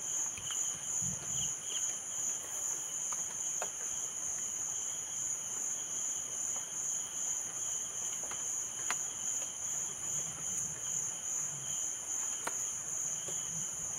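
Steady insect chorus: one high continuous trill with a lower, pulsing chirp under it, and a few faint scattered clicks.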